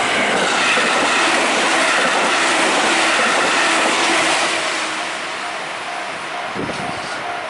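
Train passing at speed on the rails, its running noise loudest for the first four or five seconds and then easing off. A short high note repeats at an even pace throughout.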